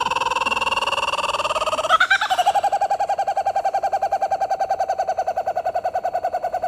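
Pet bird giving one long, loud, horn-like call. About two seconds in, the call jumps up in pitch and breaks into a fast wavering pulse, about ten a second, which is held without a break.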